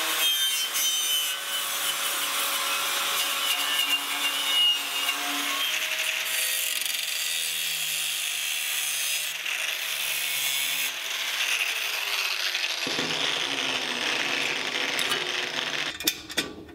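Angle grinders working a rusty steel motor mounting plate: a wire cup brush scrubbing off rust, then an abrasive disc cutting the steel. Steady grinding rasp over a motor whine that drops in pitch partway through as the grinder spins down, with a few sharp clicks near the end.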